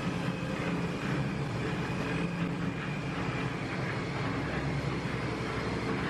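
A steady engine drone with a low hum that does not change.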